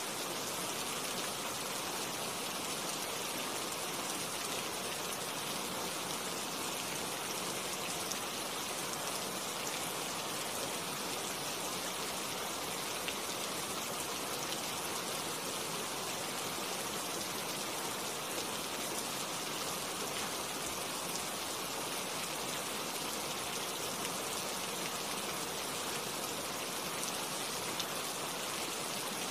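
Steady rain falling on tree leaves, an even hiss of many drops that does not change.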